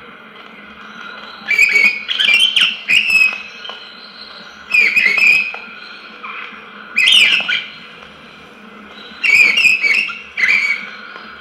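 Birds chirping and whistling, played from a sound-effects vinyl record: short flurries of quick calls every couple of seconds over steady record hiss and a low hum.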